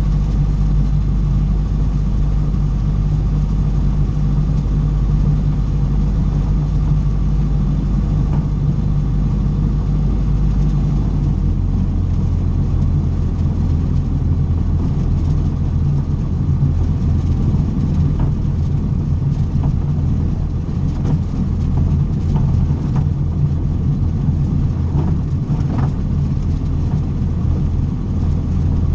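Cessna 150's four-cylinder Continental O-200 piston engine and propeller running steadily, its low drone stepping up a little in pitch about eleven seconds in as the engine speeds up.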